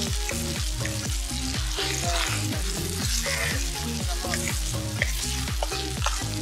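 Sliced red onions sizzling as they fry in oil in a large metal pan, stirred with a metal ladle that clinks against the pan a few times, sharpest about five seconds in. Background music with a steady beat plays underneath.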